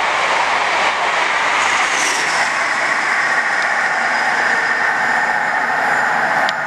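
East Midlands Trains HST passing through the station at speed, a steady, even noise of wheels and rushing air.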